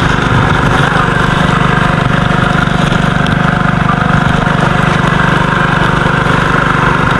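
Small engine running steadily at a constant speed, a loud, even drone.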